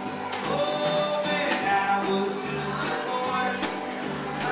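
Live band music: a hollow-body electric guitar strummed over a drum kit beat with cymbal hits, and a man singing.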